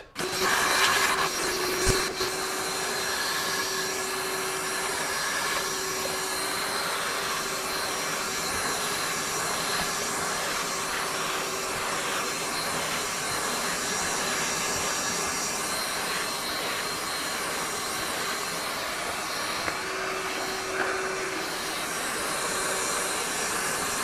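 Ryobi 18V cordless 6-gallon wet/dry vacuum (PCL735) switching on and then running steadily on high, a rushing hiss with a steady hum. Its floor nozzle is sucking sawdust off a carpet floor mat.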